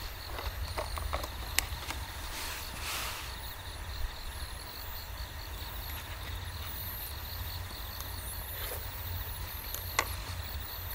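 A few light clicks and scrapes of a spoon against an aluminium mess tin, over steady, evenly pulsing insect chirps and a low constant rumble.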